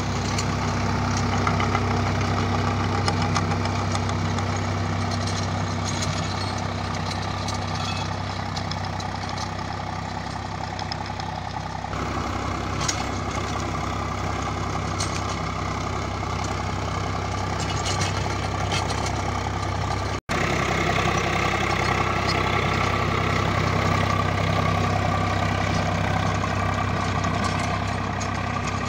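Swaraj 744 XT tractor's three-cylinder diesel engine running steadily under load as it drives a rotary tiller through the soil. The sound cuts out for an instant about twenty seconds in.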